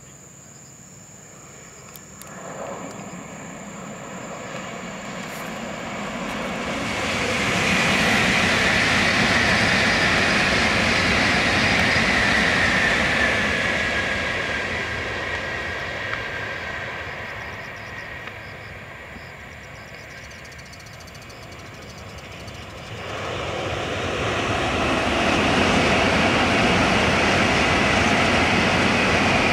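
Tokaido Shinkansen high-speed trains passing on a viaduct: a rushing roar of wind and wheels swells, holds loud for several seconds and fades away. About two-thirds of the way through, a second pass cuts in sharply and stays loud to the end.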